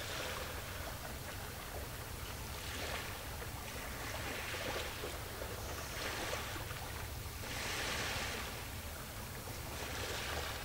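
Small waves washing onto the shore, a rush of water every couple of seconds with the biggest about three-quarters of the way through, over a steady low rumble.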